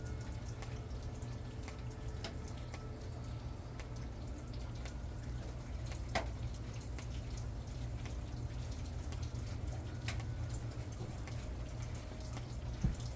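High, even chirping repeated about four times a second in long runs with brief pauses, over a steady low rumble, with a few sharp ticks.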